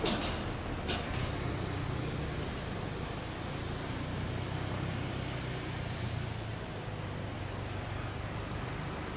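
Approaching electric freight locomotive and its train, heard as a steady low hum and rumble. Two short high-pitched hissing bursts come in the first second and a half.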